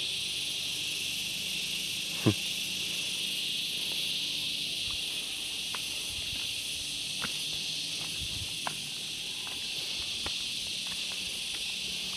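Steady, high-pitched chorus of insects droning in the plantation. A few faint clicks come through, and one short, sharper sound about two seconds in.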